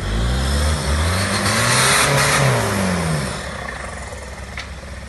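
An off-road vehicle's engine revs up under load, peaks about two seconds in, then eases off and fades.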